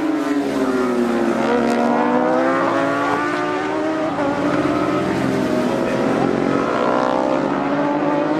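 Racing motorcycle engines slowing into a corner and accelerating out, one bike after another: the engine note drops, then climbs steeply as each bike pulls away.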